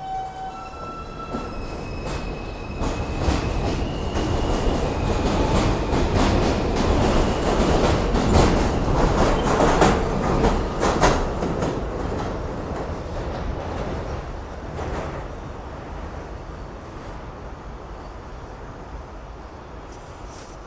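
An Alstom R160 subway train pulling out of an elevated station. Its motor whine steps up in pitch over the first few seconds, then the wheels clatter over the rail joints, loudest around 8 to 11 seconds in as the cars pass, before the sound fades as the train pulls away.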